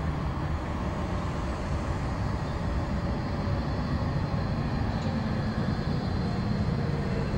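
Electric trams running on street track as they approach: a steady low rumble, with a faint motor hum that rises slightly in pitch in the second half as they draw near.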